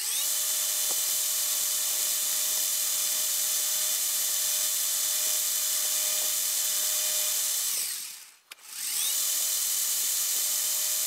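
Metal lathe running: the motor and spindle whine up to speed, run steadily, wind down to a stop about eight seconds in, then start up again straight away.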